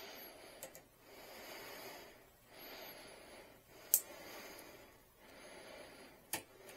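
A person breathing in and out steadily, about one breath every two and a half seconds, with a faint high whistle on some breaths. A few sharp clicks break in, the loudest about four seconds in.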